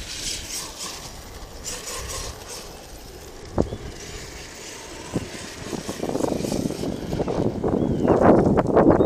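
Arrma Kraton 8S, a large electric RC monster truck, driving over dirt and brush. There are two sharp knocks partway through, and the running noise swells over the last few seconds.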